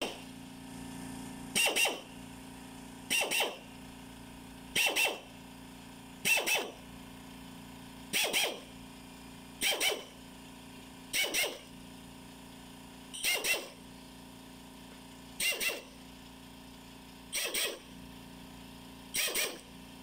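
Pneumatic air drill run in short bursts as it bores hole after hole through a thin metal sheet. There are about eleven brief bursts, each about half a second long, roughly every one and a half to two seconds.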